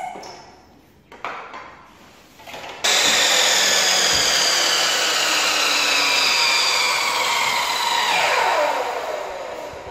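Light knocks, then an electric chop (miter) saw switches on about three seconds in and runs at speed through a cut in wood trim, its whine sagging slightly. About eight seconds in it is released and spins down with a falling whine.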